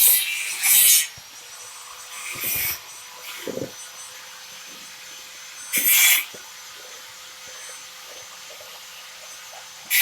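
Screwdriver scraping and prying at the lid of a metal paint can, in a few short scrapes with pauses between.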